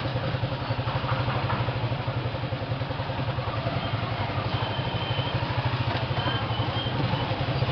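A small engine running steadily, with a fast, even throb.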